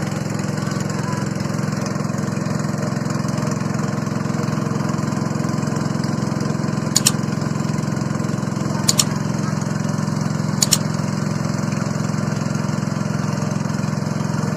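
A small engine running steadily at an even speed, with three short double clicks about two seconds apart in the middle.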